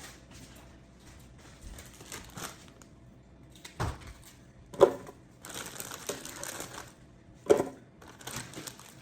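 Rummaging through crinkly packaging, a rustle and crinkle of material with three sharp knocks, the loudest about five seconds in.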